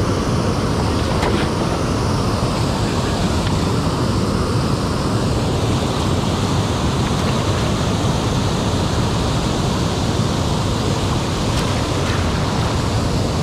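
Steady rushing of river water spilling over a low dam.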